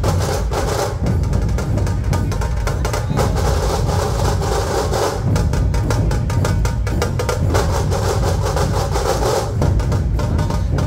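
Dhol-tasha ensemble drumming: massed dhol barrel drums keep a heavy, steady beat under fast, dense tasha stick strokes, without a break.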